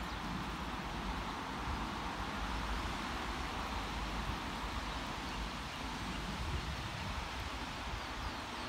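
Wind buffeting the microphone with a steady rushing noise, over a departing diesel multiple unit running away down the line in the distance.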